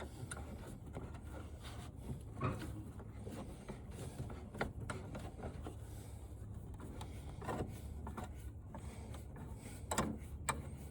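Faint, scattered clicks and knocks of parts and tools being handled while the flat-screen TV is taken apart, five or so over a few seconds, over a steady low hum.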